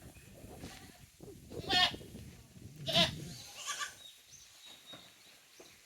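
Tokara goats bleating: two loud, quavering bleats about two seconds in and a second later, then a fainter one.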